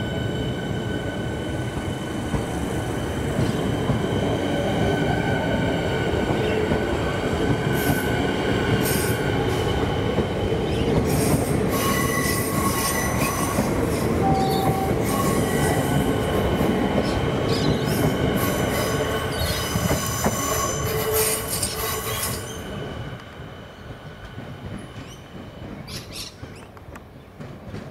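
X'Trapolis electric multiple unit running past close by, a heavy rumble of wheels on rail with several high, steady wheel squeals over it. About 22 seconds in the sound cuts abruptly to the much quieter, distant running of a Siemens electric train approaching, with a few clicks.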